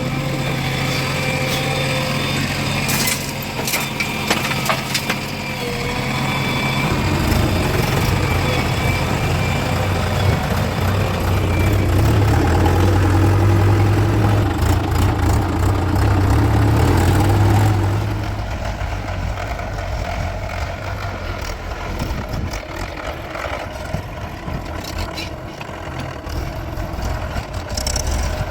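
Diesel engine of heavy earthmoving machinery running steadily. Its note drops lower and grows louder about seven seconds in, holds under heavier load for about ten seconds, then eases back.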